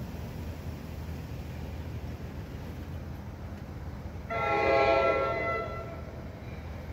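An NJ Transit ALP-45A locomotive's multi-note air horn sounds one blast of under two seconds, starting a little past the halfway point, as the train approaches the grade crossing. It is a warning for the crossing. A steady low rumble runs underneath.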